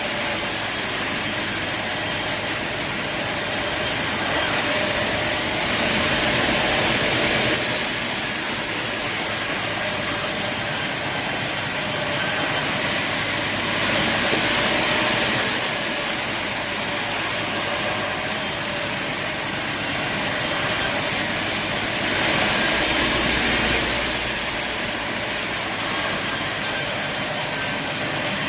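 Steady mechanical running noise with a hiss, typical of sawmill machinery, its character changing abruptly every few seconds.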